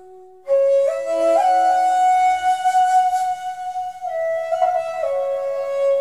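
Background music: a flute playing a slow melody of long held notes, entering after a brief pause about half a second in.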